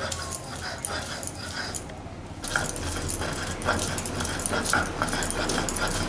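Stone roller (nora) rubbed back and forth in quick strokes over a stone grinding slab (shil), grinding grated coconut and then green chillies with garlic into a paste: gritty stone-on-stone scraping with a click at each stroke. It grows louder about two and a half seconds in.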